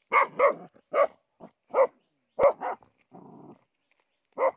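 A dog barking down into a burrow that it is digging out, about eight short barks, several in quick pairs. A brief rough scuffling noise comes about three seconds in.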